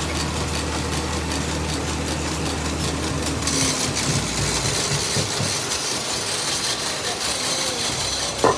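Electric wood lathe running with a steady low hum, spinning a lacquered cot leg. About three and a half seconds in, the hum gives way to another lathe running with a higher hiss, and a short sharp sound comes near the end.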